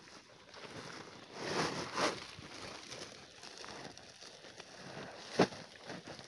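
Dry corn husks, leaves and stalks rustling as ears of corn are picked by hand and put into a sack. The rustling swells about one and a half to two seconds in, and there is a single sharp knock about five seconds in.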